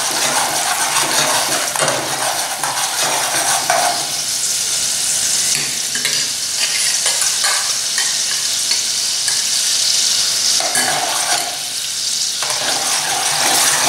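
Thick milk cream melting and sizzling in hot oil in a steel pot. A steel spoon stirs and scrapes against the pot for the first few seconds and again near the end, with steady sizzling in between.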